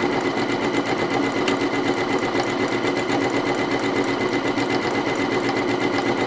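Domestic sewing machine running steadily, its needle stitching rapidly through hooped fabric in free-motion embroidery, filling in an area with dense stitches. A steady motor whine sits under the fast, even needle strokes.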